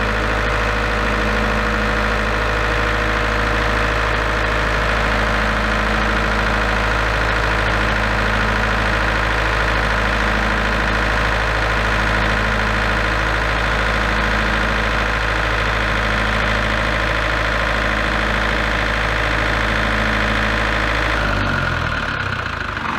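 Large diesel generator set running steadily, with a low beat pulsing about every second and a half. About 21 seconds in it shuts down and the engine runs down to a stop.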